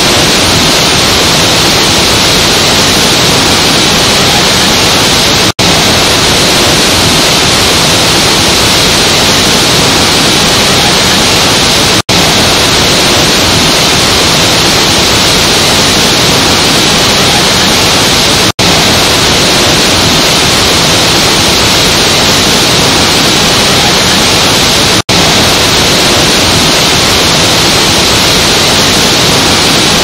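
Large waterfall pouring into a river: a loud, steady rushing hiss of falling water. The sound cuts out for an instant about every six and a half seconds, four times in all.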